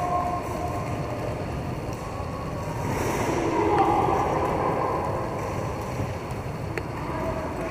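Steady reverberant rumble of roller hockey skate wheels rolling over the rink floor, with distant calls from players around the middle and a single sharp click near the end.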